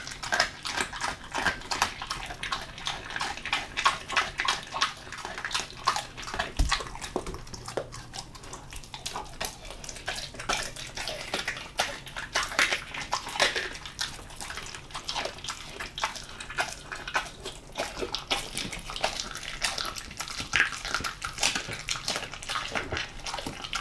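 German Shepherd mix chewing raw monkfish, an irregular, continuous run of wet smacking and chewing clicks.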